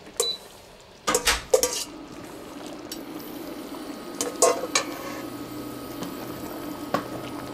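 A wooden spatula scraping and knocking beef strips out of a stainless steel bowl into a cast-iron Dutch oven, with a cluster of sharp clatters in the first two seconds and more about four and a half seconds in. Underneath, from about three seconds on, the cream sauce simmers with a steady low bubbling as the meat is stirred in.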